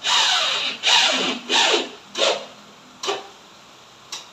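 A series of rubbing, scraping strokes of the large UV marble-look board against the wall as it is pressed and shifted into place. The first few strokes are long and loud, and the rest come shorter and fainter.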